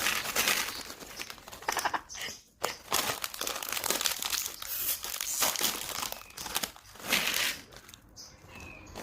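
Crinkly plastic snack packaging being handled and opened, in irregular bursts with brief pauses.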